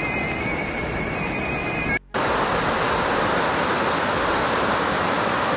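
Steady rush of floodwater, cut off for an instant about two seconds in, then a louder, hissier rush of fast-flowing flash-flood water.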